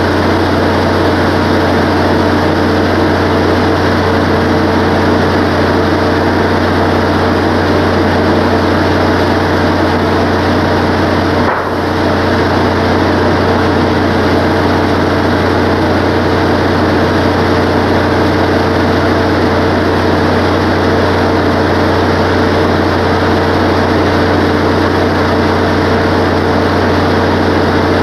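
Wood-Mizer LT15 bandsaw sawmill's engine running at a steady speed, a constant low hum that does not change, with a momentary dip in level about a dozen seconds in.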